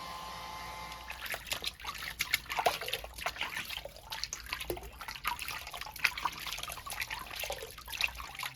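Irregular splashing and dripping of water, a rapid run of short wet crackles. A steady hum fades out about a second in.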